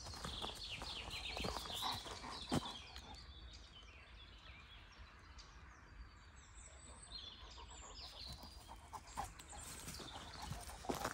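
Footsteps crunching through dry leaf litter and twigs on a forest path, with one sharper snap about two and a half seconds in. Birds chirp faintly, most plainly in the quieter middle stretch.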